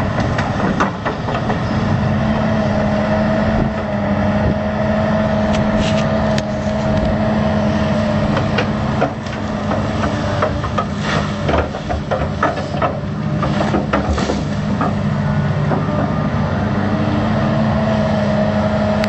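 New Holland crawler excavator's diesel engine running steadily with a steady whine over it, while the bucket digs through rooty ground with scattered knocks and scrapes.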